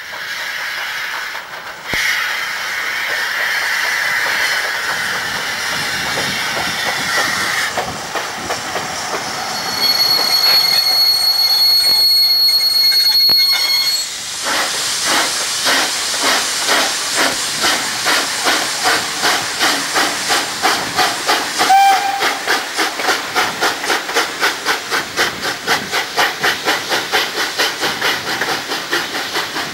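Steam locomotive working a train: hissing steam at first, then a steady high-pitched whistling tone for a few seconds, then the regular exhaust beat of the chimney at about two chuffs a second, quickening slightly as it gathers speed.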